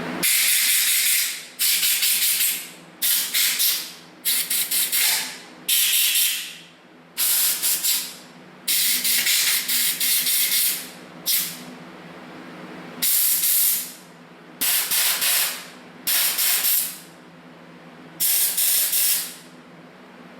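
About a dozen loud, short hissing bursts, each about a second long with gaps between them, from blowing compressed air and spraying brake cleaner through the passages of a Zenith carburetor to clean them out.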